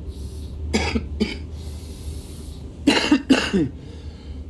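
A man's coughing fit: two short coughs about a second in, then two louder coughs in quick succession near the end, over the steady low rumble of a suburban electric train.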